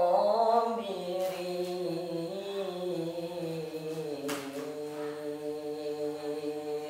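A boy's voice reciting the Quran in melodic tilawah style, drawing out one long melismatic phrase: the pitch bends at first, then settles into a long held note that stops near the end.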